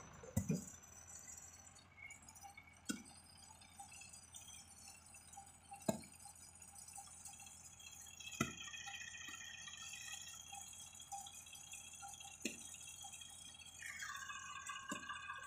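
A spade chopping into dry, hard soil: six short sharp strikes a few seconds apart, over a faint steady background of high tones.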